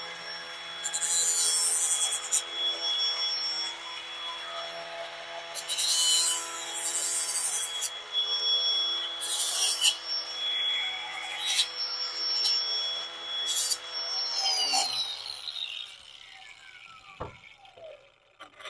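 Cordless angle grinder with an abrasive cutoff wheel running with a steady whine, deburring the cut end of a flexible drain-cleaning shaft. About five loud rasping bursts come each time the wheel is worked around the metal edge. About 15 seconds in, the motor is let go and winds down, falling in pitch, and a single knock follows.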